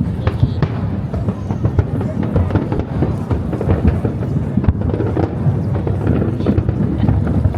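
Fireworks bursting in a dense, irregular run of overlapping booms and cracks.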